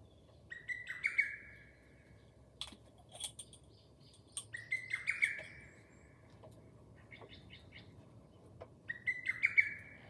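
Lesser cuckoo (hototogisu) singing its rapid staccato phrase three times, about four seconds apart.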